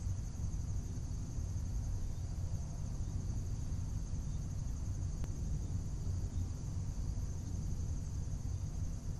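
A steady, high-pitched chirring drone over a constant low rumble, with one faint tick about five seconds in.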